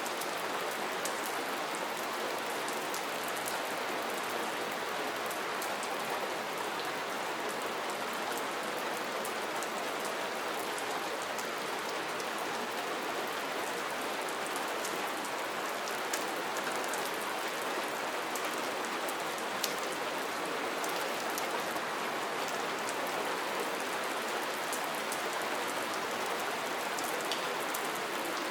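Steady rain falling, an even hiss with many small drop ticks and an occasional slightly louder drip.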